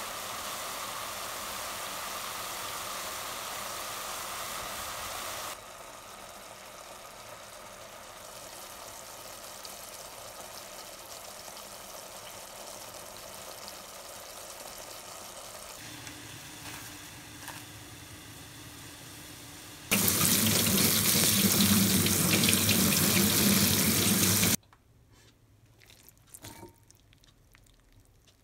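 Vegetables and squid sizzling as they stir-fry in a hot pan, in a few separate clips that start and stop abruptly. About twenty seconds in comes the loudest sound, four to five seconds of rushing running water, which cuts off suddenly and leaves a few faint clicks.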